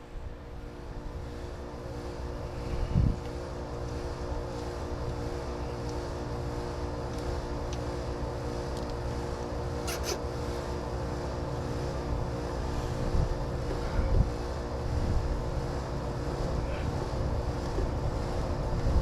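Low rumble of wind on the microphone, with a knock about three seconds in, a sharp click about ten seconds in and another knock about fourteen seconds in.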